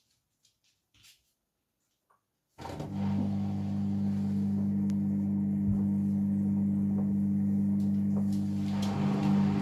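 Hoover All In One washing machine's drain pump starting about two and a half seconds in, after a few faint clicks, then humming steadily.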